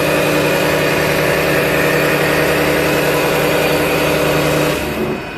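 A CNC machine with a Seco Double Octomill face mill cutting metal in a high-feed pass: a loud, steady hum and whine over hiss that cuts off suddenly near the end.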